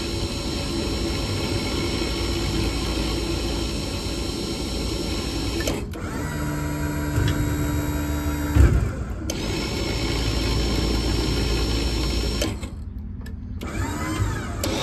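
Service-truck crane running through its functions, its drive motor giving a steady whine over a hum. The tone shifts as functions change, with a sharp clunk about two thirds of the way through, and the motor drops off near the end.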